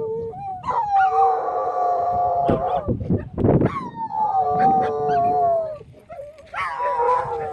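A dog howling: three long howls, each sliding slowly down in pitch, with a short rough, noisy stretch between the first two.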